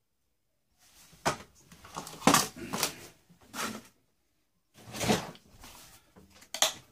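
Parts of a boombox being handled and pulled apart: an irregular string of knocks and clatters, starting about a second in.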